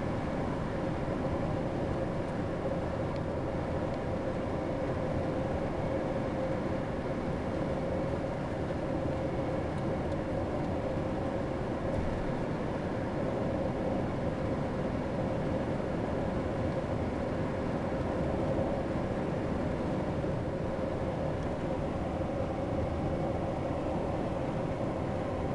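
A vehicle driving steadily through a road tunnel: constant engine and tyre noise with a steady hum, echoing off the tunnel walls.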